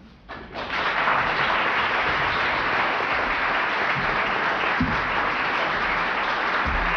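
Audience applauding, starting about half a second in and holding steady, with two dull low bumps in the second half.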